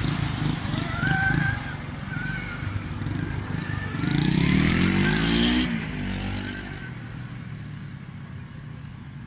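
Small motorcycle engine running at idle, then revving with a rising pitch about four seconds in as the bike pulls away, fading off afterwards.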